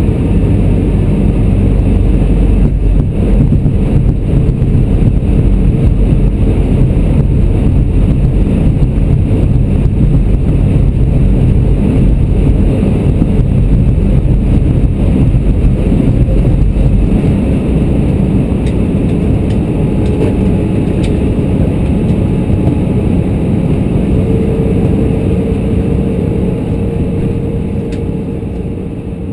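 Airbus A320's CFM56 engines and airflow heard from inside the cabin as a loud, steady rumble. The deepest part of the rumble eases after about seventeen seconds, and a steady hum joins in about three-quarters of the way through before the sound fades out at the end.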